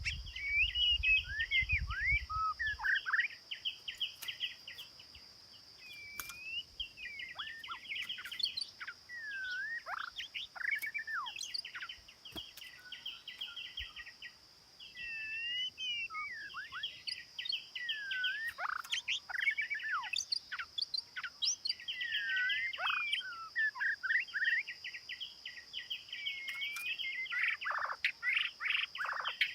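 A songbird singing a long, fast, varied song of rattling chirps, trills and slurred whistles, over a steady high-pitched hum. A low rumble sounds in the first couple of seconds.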